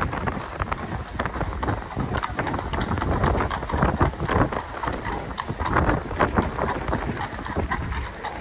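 Hooves of a pair of horses pulling an open carriage, clip-clopping on stone paving as the carriage passes and moves away.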